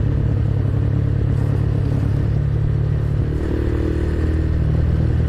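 Motorcycle engine running steadily under way, its note changing about three seconds in.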